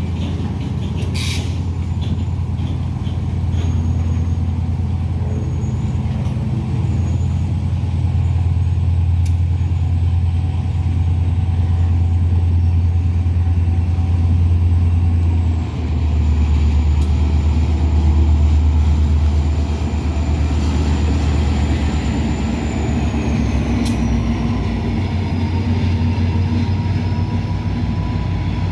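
Diesel locomotive engine running steadily close by, a low drone that drops in pitch about halfway through. A faint high whine slides down near the end.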